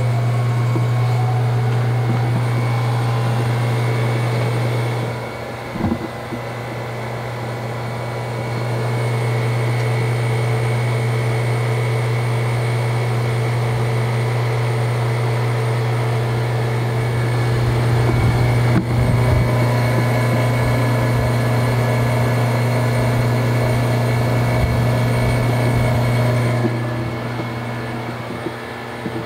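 A/C recovery-and-recharge machine's vacuum pump running with a steady low hum, pulling a vacuum on the 1999 Dodge Ram's air-conditioning system before it is charged with refrigerant. The level drops for a few seconds twice, and there is a brief knock about six seconds in.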